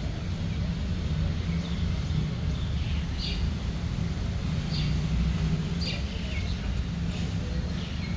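Birds chirping, short calls every second or two, over a steady low rumble.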